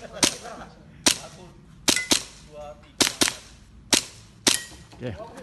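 An airsoft gun firing a string of about eight sharp shots, some single and some in quick pairs, during a practical-shooting stage.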